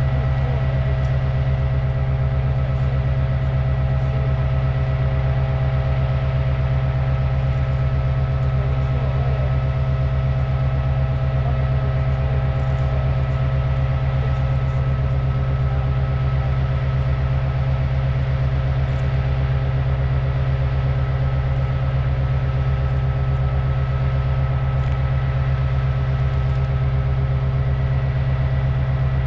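An engine idling steadily: a constant low hum with a few steady higher tones above it, unchanging throughout.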